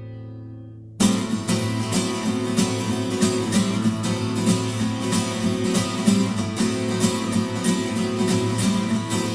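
Instrumental song intro: a held chord fades out, then about a second in strummed acoustic guitar comes in with a steady beat.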